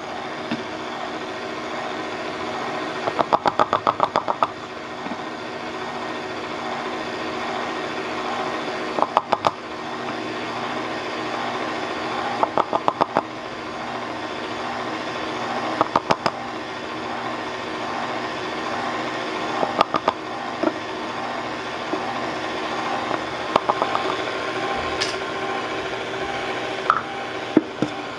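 Electric stand mixer running steadily at low speed, its beater turning through thick cake batter while flour is added gradually. Short bursts of rapid clicking come every three to four seconds.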